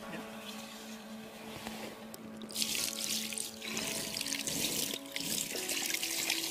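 Water splashing and sloshing around a large mirror carp lying in a wet sling, coming in bursts from a couple of seconds in, over steady background music.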